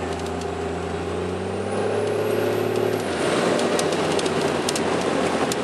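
Dodge Ram's Cummins straight-six turbo diesel driving, a steady engine drone with a faint high turbo whistle rising over it. About halfway through the engine tone drops away under a louder rushing road noise with scattered ticks.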